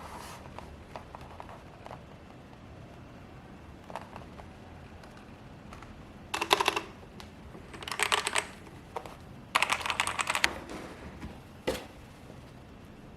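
Typing on a Ziyoulang K3 mechanical keyboard with linear red switches: a few scattered keystrokes, then three quick bursts of rapid key clicks, and a single keystroke near the end.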